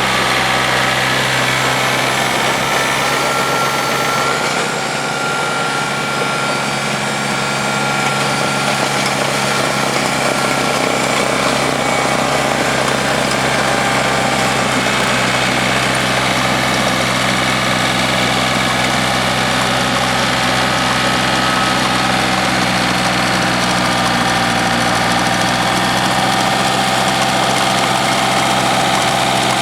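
1986 John Deere 856 compact tractor's engine running steadily, driving a PTO-powered two-stage snowblower, with a brief slight drop in loudness about five seconds in.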